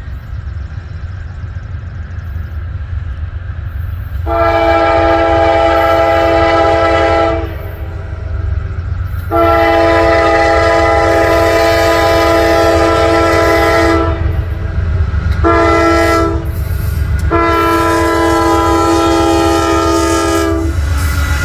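Norfolk Southern freight locomotive's multi-chime air horn blowing the grade-crossing signal: two long blasts, a short one, then a long one. Under it runs the steady low rumble of the passing train.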